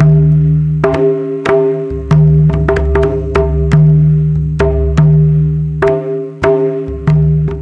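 Mandar, the two-headed hand drums of Jharkhand, played by hand in a steady rhythm. Deep booming bass strokes ring for about a second each, roughly every second and a half, with quicker sharp slaps and ringing higher tones between them.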